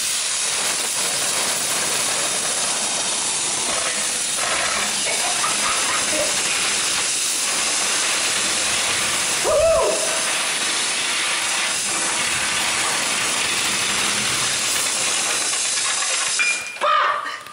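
Compressed air hissing steadily from a blow-gun nozzle, driving a fidget spinner of burning steel wool. About halfway through there is a brief whine that rises and falls, and the hiss cuts off shortly before the end.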